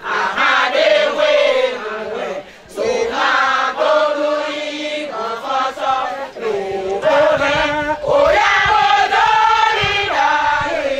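A large group of women singing a chant in chorus, pausing briefly twice between phrases.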